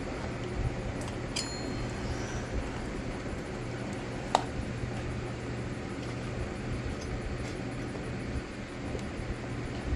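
Hand tools at work on a string trimmer's housing while a screw is taken out: a short ringing metallic clink about one and a half seconds in and a sharp click a few seconds later, with a few fainter ticks, over a steady low hum.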